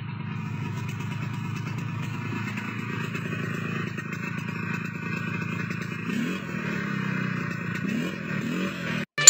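Petrol brush cutter engine running steadily, rising in pitch briefly twice near the end as it is revved.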